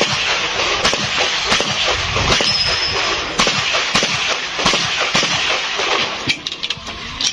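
A string of handgun shots fired at a steady pace through a course of fire, each a sharp report from the range.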